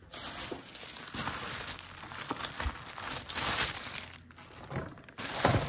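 A plastic bag crinkling and rustling as it is handled, in uneven bursts with a short lull just after the middle and a louder crackle near the end.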